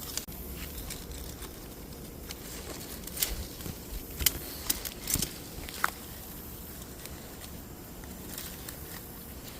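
Dry sticks and a ratchet strap being worked as the bundle is tightened: a cluster of sharp, irregular clicks and snaps in the middle few seconds, over a low outdoor background.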